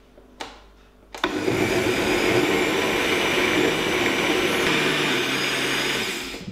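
Countertop jug blender switched on about a second in, its motor running steadily as it blends a fruit smoothie of frozen berries, kiwi, water and oat drink, then winding down just before the end. This is the first blending pass.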